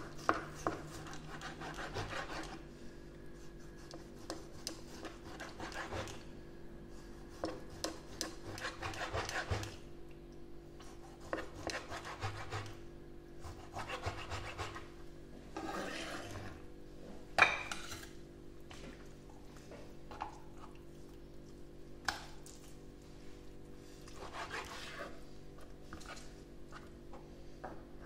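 Chef's knife slicing raw chicken breast on a plastic cutting board: irregular sawing strokes of the blade scraping through the meat and along the board, with one sharp knock a little past halfway.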